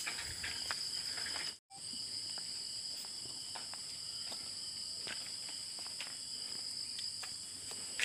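Steady chorus of insects such as crickets, several high, continuous trills layered together, with faint scattered ticks. It cuts out for a moment about a second and a half in.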